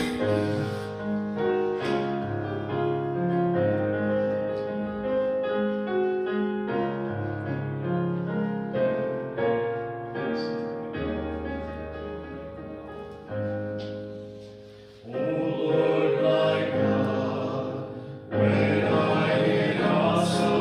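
Digital keyboard in a piano voice playing a slow hymn introduction in sustained chords; about three-quarters of the way in, a small group of voices starts singing along with it.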